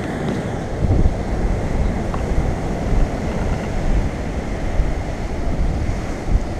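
Surf washing over sea rocks, with wind buffeting the microphone in gusts.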